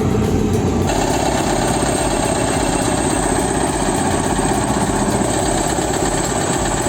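Bulldozer's diesel engine running steadily, close and loud, turning harsher and brighter about a second in.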